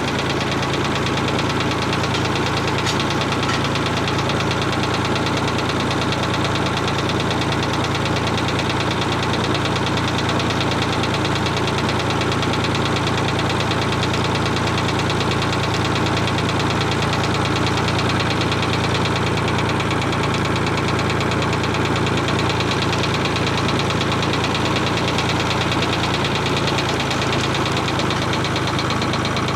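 Ford 4000 tractor engine running at a steady speed, an even low throb that does not change.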